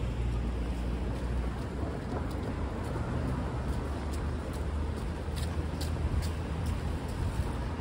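Steady city street traffic rumble, with a few light clicks about five to six seconds in.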